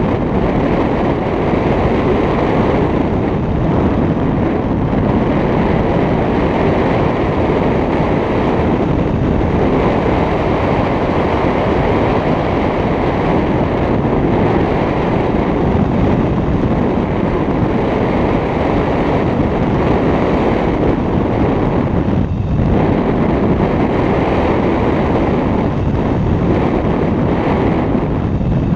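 Loud, steady wind rushing over a GoPro microphone from the airflow of a tandem paraglider in flight, a continuous buffeting rumble with a brief lull about three-quarters of the way through.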